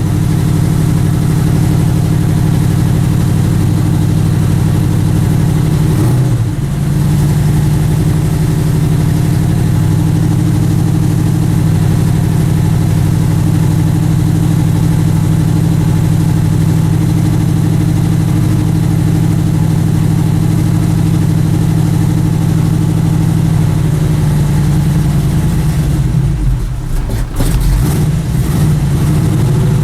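Freshly rebuilt Ford Cleveland V8 idling on its own just after a cold start, still cold. The idle wavers briefly about six seconds in and runs unevenly for a couple of seconds near the end before settling again.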